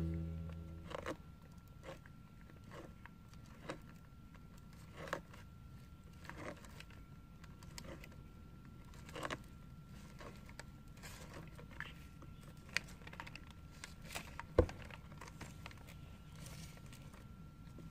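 Sulcata tortoises biting at carrot slices: faint, scattered crunches and clicks at irregular intervals, one sharper snap about two-thirds of the way through. A faint steady high hum runs underneath.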